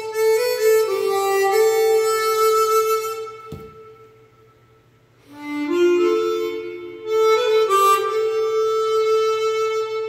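Swan SW1248 chromatic harmonica, customized to be airtight, played in two slow melodic phrases of held notes with a pause of under two seconds between them and a brief click in the pause.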